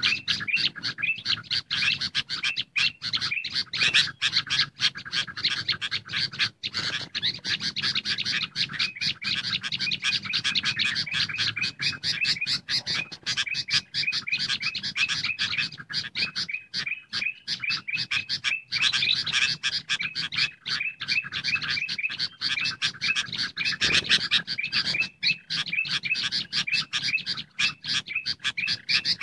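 Bird-lure recording of bulbuls, sooty-headed bulbul mixed with ruby-throated bulbul, chattering noisily in a dense, unbroken stream of rapid, repeated chirps and whistles. The excited 'ribut' chatter is the kind used to call wild bulbuls in.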